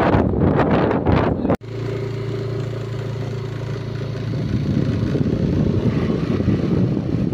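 Wind buffeting the microphone, cut off abruptly about a second and a half in, followed by a motorcycle engine running steadily while riding, with wind and road rush. The engine's hum fades into the wind and road noise about halfway through.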